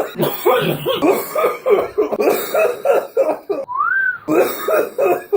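Men coughing hard in a rapid string of coughs and gasping, wheezy breaths. About two thirds through there is a single high, thin squeak of a wheeze that rises and then falls.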